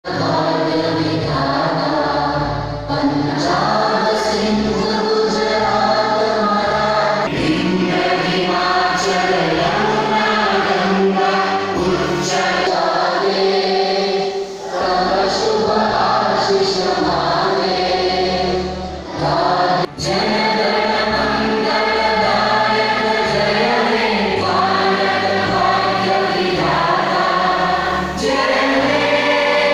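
Many voices singing together as a choir over a steady musical accompaniment with a bass line.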